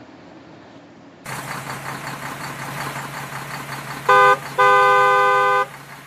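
Truck engine running with a steady low hum, and a truck horn sounded twice about four seconds in: a short toot, then a longer blast of about a second.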